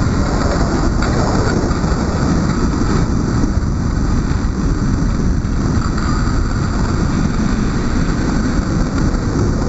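Steady rushing wind noise on the microphone of a camera carried at skating speed around an ice rink, heaviest in the low end and unbroken throughout.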